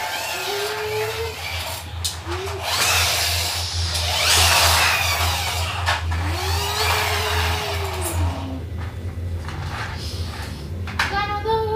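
Children making racing-car engine noises with their voices: long rising-and-falling 'vroom' hums over a steady low buzz, with a hissy rush in the middle.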